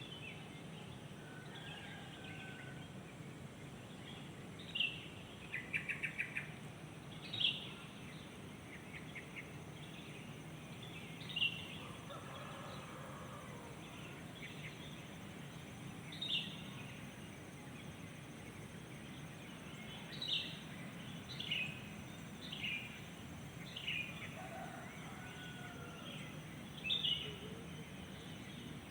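Wild birds calling: short, sharp chirps that slide downward in pitch, repeated every few seconds, with one quick rapid series of notes about six seconds in and a cluster of calls around twenty to twenty-four seconds in. A steady low background hum runs beneath them.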